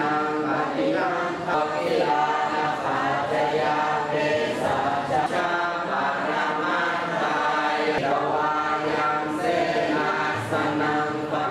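Buddhist prayer chanting by a group of voices in unison, a steady rhythmic chant of held syllables.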